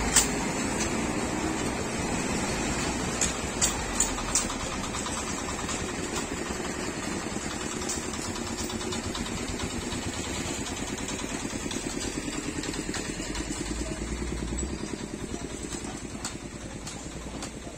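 Road traffic: the engines of small goods trucks and motor-vans running as they drive past, with a steady throbbing beat. A few sharp clicks come about three to four seconds in, and the sound fades over the last few seconds.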